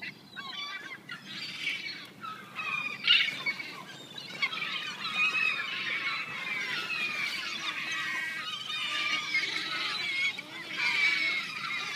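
A flock of seagulls calling over one another while being fed, with many overlapping high cries that grow denser after the first few seconds.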